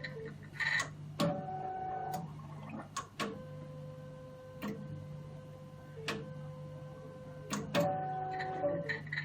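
HY-3300 hematology analyzer running a lyse-reagent flush cycle: valves clicking sharply at uneven intervals over a steady mechanical hum, with short stretches of a pitched motor whine.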